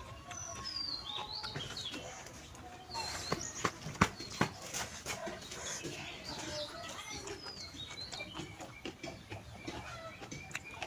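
Birds chirping in short, high, falling calls again and again, with a few sharp clicks, the loudest about four seconds in.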